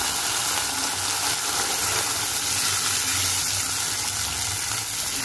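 Tomato sauce and sautéed onion sizzling steadily in a cooking pan, a constant frying hiss.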